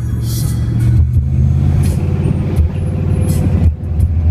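1964 Chevrolet Impala SS cruising on the road, its engine rumble and road noise heard from inside the cabin.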